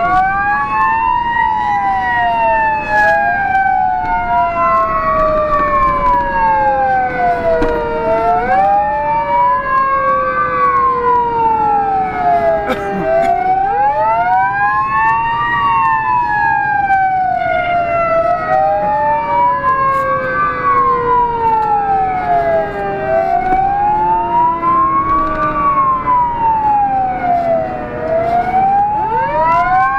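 Renault GBA fire engine's siren sounding on an emergency run: two overlapping tones, one rising and falling evenly about every five seconds, the other sweeping up quickly and then sliding slowly down, over the truck's engine and road noise.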